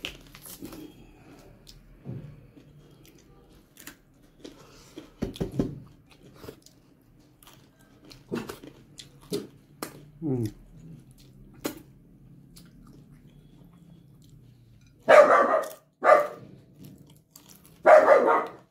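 Quiet chewing and small eating clicks, then a dog barks about four times near the end.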